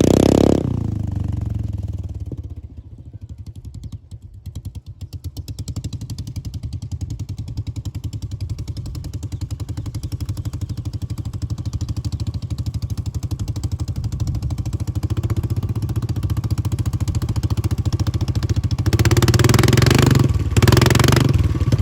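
Royal Enfield Bullet Electra 350's single-cylinder engine running straight-piped with no silencer. It falls from a rev back to an even, fast thumping idle, then is revved twice near the end.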